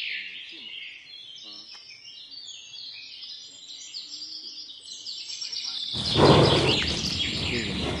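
Birds chirping and singing in the background. About six seconds in, a louder, deeper sound from a wildebeest herd cuts in suddenly.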